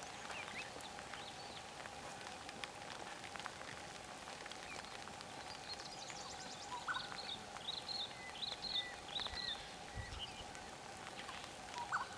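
Bush ambience: small birds calling in short high chirps and a few whistled notes, most often between about six and ten seconds in, over a steady faint hum.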